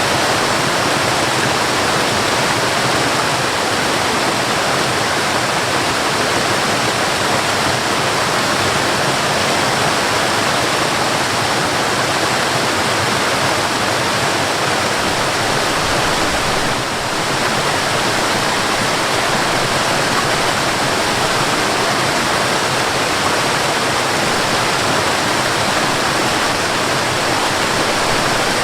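Mountain waterfall, water falling steadily in a dense, even rush, with a brief slight dip in level about two-thirds of the way through.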